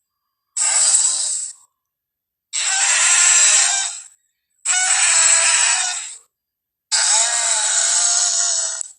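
Triceratops creature sound effects from a film: four harsh, bellowing calls of one to two seconds each, separated by dead silence.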